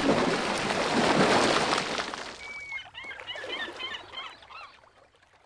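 A loud rushing noise that fades over the first two and a half seconds, then a quick run of small bird chirps for about two seconds that fades away.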